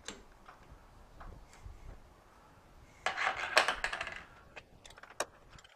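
Steel collet block and three-jaw lathe chuck clinking as the block is set in and clamped. There are light scattered clicks, then about a second of metallic rattling and clinking about three seconds in, then a few sharp clicks near the end.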